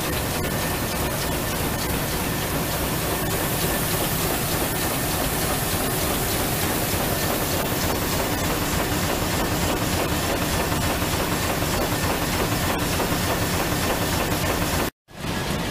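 Steady machinery noise and hiss of a printing hall, with a faint steady whine and occasional small ticks; the sound cuts out for a moment near the end.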